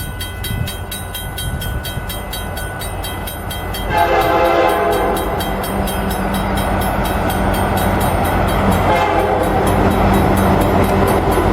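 Railroad crossing bell ringing at about four strikes a second over the low rumble of an approaching locomotive. About four seconds in, the train's horn starts a long chord blast, breaks briefly, then sounds again.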